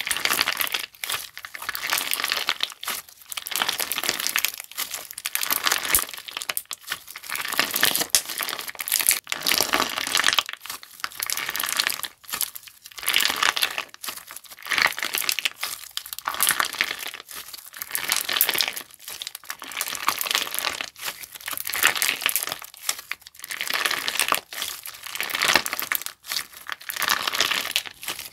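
Clear-base crunch slime being squeezed and pressed by hand, giving dense crackling with many small sharp snaps. It comes in repeated handfuls, each a second or two long, with brief pauses between.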